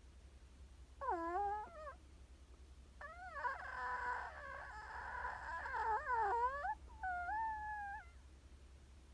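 Chihuahua whining in high, wavering tones: a short whine about a second in, a long one of nearly four seconds from about three seconds in, then a shorter one near the end.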